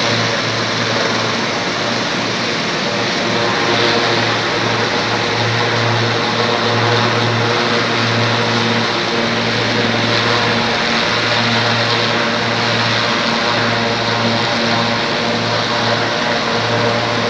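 Turbine helicopters running on the ground: a steady drone of engines and rotors, with a strong low hum under a broad hiss.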